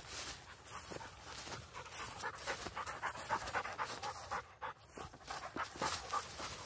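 Quick, rhythmic panting breaths close to the microphone, with tall grass swishing underfoot.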